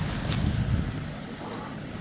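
Steady low rumble of fire engines running at the scene, mixed with wind buffeting the microphone; the low rumble eases about halfway through.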